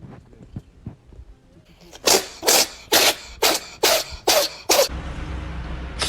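A cat sneezing in a rapid fit, seven sharp sneezes at about two a second. It cuts abruptly to a steady low hum near the end.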